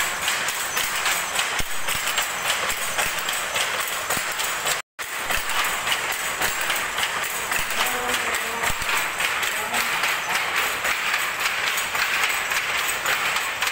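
Power loom weaving silk saree cloth, running with a fast, steady mechanical clatter of rapid repeated knocks. The sound drops out for an instant about five seconds in, then the same clatter carries on.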